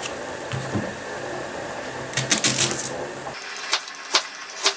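Kitchen knife slicing through an onion and knocking on a plastic cutting board, a quick flurry of clicks a little past halfway, then even strokes about two a second.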